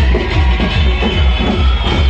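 Loud music with a heavy, fast bass beat.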